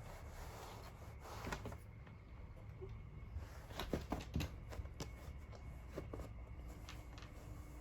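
Cats pouncing and scrabbling at a carpet: rustling and scratching, with a scatter of sharp knocks that are loudest about four seconds in.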